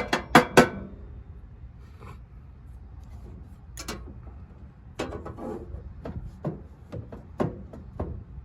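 Sharp clicks, knocks and scraping from hand tools working the screws on the pellet grill's metal housing. A quick run of clicks comes at the start and a busier cluster from about five seconds in, over a low steady rumble.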